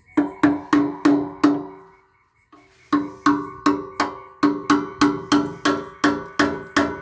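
Hammer blows on a metal part of a solar inverter being scrapped, each strike ringing with a clear pitched tone: a run of five, a short pause, then about a dozen more at roughly three a second, knocking loose a part that is held in.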